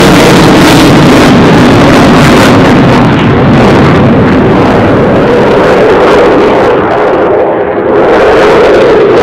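Jet noise from a Eurofighter Typhoon FGR4's twin EJ200 turbofans at high power, with reheat lit, as it manoeuvres overhead. The noise is loud and steady, and thins briefly in the treble about seven and a half seconds in.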